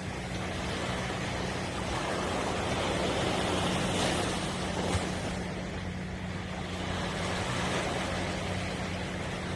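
Sea surf washing onto the shore in a steady wash that swells about three seconds in, with a steady low engine hum underneath.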